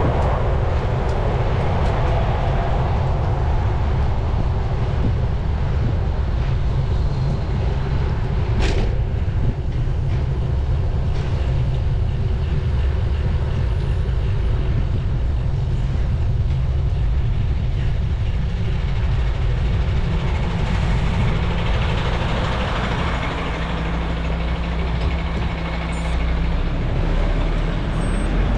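Road traffic with heavy vehicles such as trucks and buses, heard from a moving bicycle over a dense low rumble of wind on the microphone. There is a sharp click about nine seconds in, and a steady low engine hum comes in over the last few seconds.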